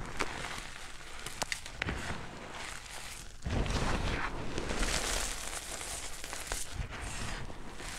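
Bare feet crushing blocks of gym chalk and cornstarch in a tub of loose chalk powder: a soft crumbling crunch full of small crackles and clicks, swelling louder about halfway through as the feet press down harder.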